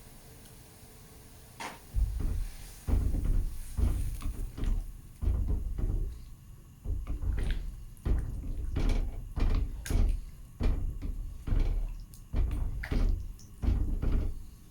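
A ladle stirring a pot of gulai with coconut milk, with repeated strokes knocking and scraping against the pot, about one a second from about two seconds in. The stirring keeps the coconut milk from splitting.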